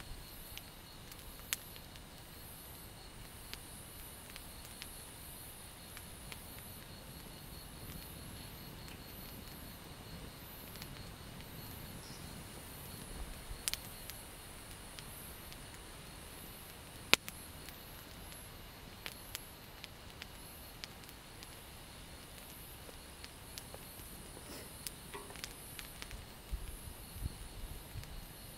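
Insects chirping, a very high, evenly pulsing chorus over a thin continuous trill. A few sharp clicks break in, the loudest about two-thirds of the way through.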